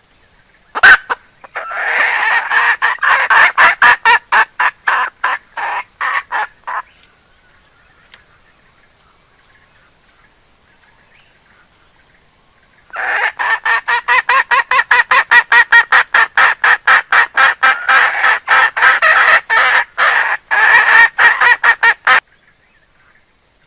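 Hen calling in two long runs of rapid, evenly repeated clucks, about five a second, with a pause of several seconds between them.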